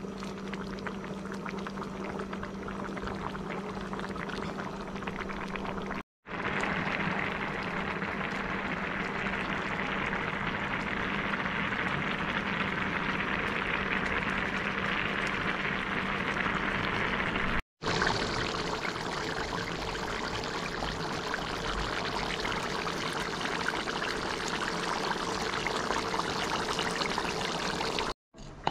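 Pots of food boiling hard, a steady bubbling hiss: rice and peas cooking in coconut milk, then curry goat. A low steady hum runs under the first few seconds. The sound drops out briefly twice.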